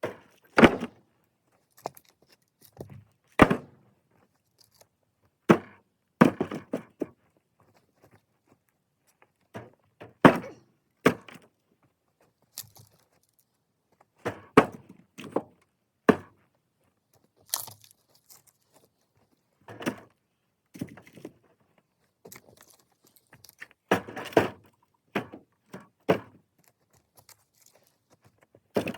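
Pieces of firewood being tossed onto a load one after another, each landing with a wooden thunk, one every second or two and sometimes two close together.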